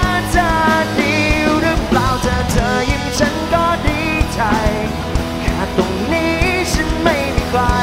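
Live rock band playing: drums, electric guitars, bass and keyboard, with a male vocalist singing into a microphone over them.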